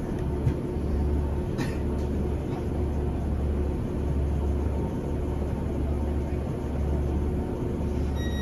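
Class 150 diesel multiple unit standing at a station platform, its underfloor Cummins diesel engine idling with a steady low rumble and a faint hum, heard from inside the passenger saloon. A couple of small knocks come in the first two seconds.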